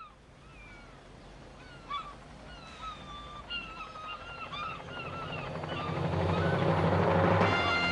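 Seagulls calling repeatedly with short yelping cries over a hiss of sea air, which swells into a rising rush of noise; near the end music with sustained tones comes in.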